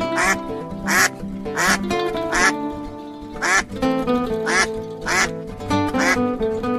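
Ducks quacking about eight times in short, sharp calls over background music.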